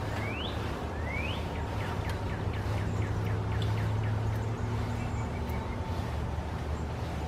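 A songbird singing: two rising whistles, then a quick run of short down-slurred notes, about five a second, over a steady low rumble.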